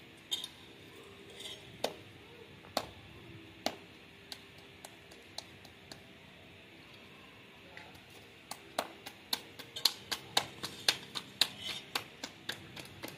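Sharp clicks and taps from kitchen work, scattered at first, then a quick irregular run of about three a second in the second half.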